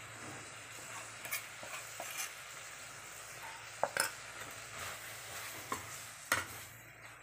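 Onion, tomato and spice-powder masala sizzling steadily in a stainless steel kadai while being fried in oil. A perforated steel ladle stirs it, clinking against the pan several times, loudest about four seconds in and again near the end.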